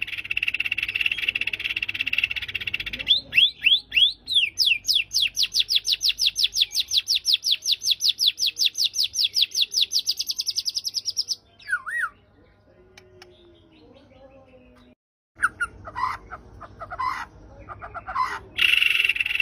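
White-rumped shama (murai batu) singing agitatedly. A harsh buzzing phrase gives way to a long, rapid run of evenly repeated sweeping notes lasting about seven seconds. After a pause of about three seconds come scattered whistled notes and short trills.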